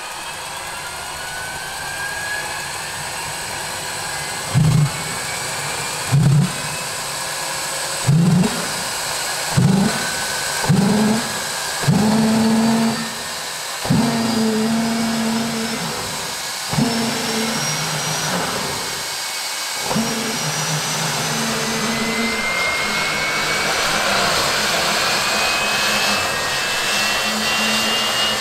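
Mi-2 helicopter's GTD-350 turboshaft engine on start-up. The electric starter spins the rotor up with a thin whine that rises steadily in pitch. From about four seconds in, the starting gas lights in the combustion chamber with about eight loud, low whumps of flame, which run together into a low hum midway: the characteristic combustion-chamber hum that signals the starting gas has ignited.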